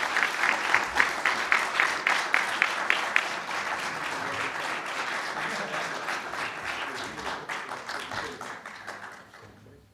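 Audience applauding. A few claps stand out at about three a second in the first three seconds, then the applause slowly dies away and cuts off abruptly at the end.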